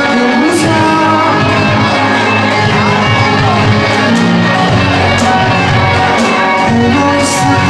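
Live rock band playing a slow rock song: electric guitars, bass guitar, keyboard and drum kit, with cymbal hits near the start and near the end.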